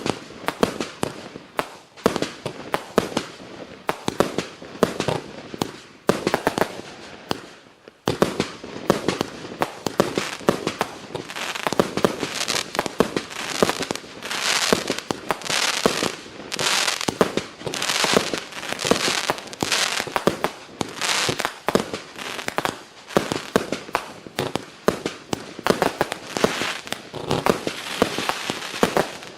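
A 98-shot, 0.9-inch-calibre firework cake firing: a fast, uneven string of launch thumps and aerial bursts with crackle, with a brief lull about eight seconds in before the shots resume.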